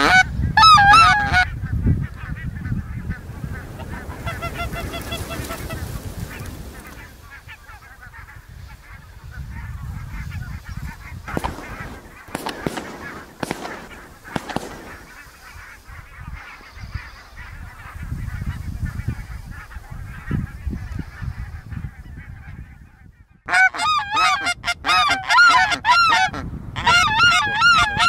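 Goose honking: a short run of honks at the start, faint honks a few seconds in, then a loud, rapid string of honks near the end. A hunter's wooden goose call is being blown at the start.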